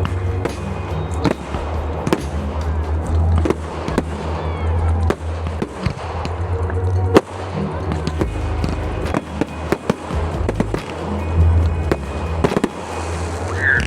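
Fireworks display: aerial shells bursting in repeated sharp bangs at irregular intervals, with loud music and a heavy bass playing underneath.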